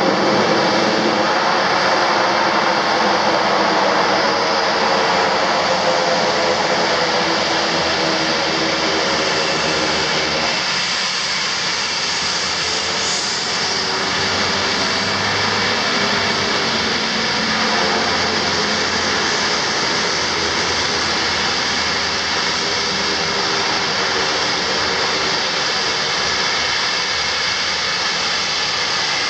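Twin Garrett TPE331 turboprop engines of a Sita Air Dornier 228 running as the plane taxis: a loud, steady propeller drone with a high turbine whine held over it.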